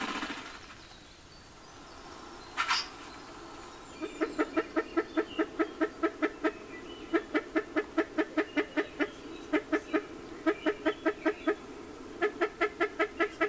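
Spruce grouse clucking: a long series of low, evenly spaced clucks, about five a second, in runs of one to three seconds with short pauses between, starting about four seconds in. A single sharp click comes shortly before the clucking starts.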